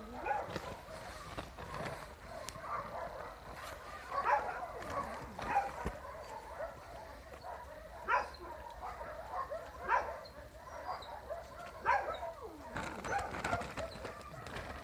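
Puppies yapping and barking in short, high calls at irregular intervals, every second or two.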